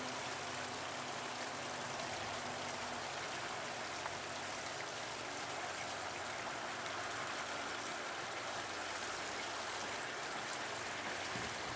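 Steady rushing of running water, an even hiss at a constant level.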